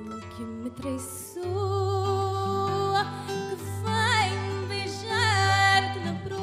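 Live fado: a woman singing into a microphone with wide vibrato over a Portuguese guitar and a classical guitar. The sung line comes in about a second and a half in and is loudest near the end.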